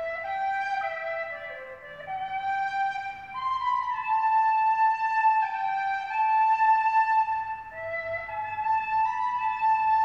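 Music: a slow melody on a flute-like wind instrument, held notes stepping up and down in pitch.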